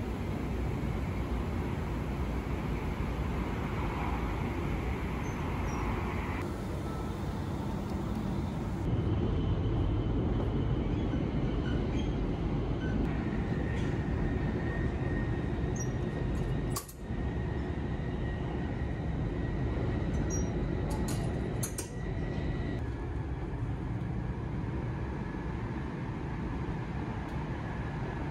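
E7 series Shinkansen running, heard from inside the car: a steady rumble and rush of running noise. It gets louder about nine seconds in, with two brief dips later on.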